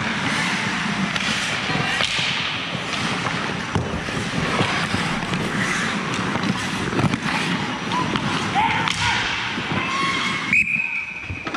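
Ice hockey play: skate blades scraping and carving the ice, with repeated sharp clacks of sticks and puck. A brief steady high tone sounds near the end.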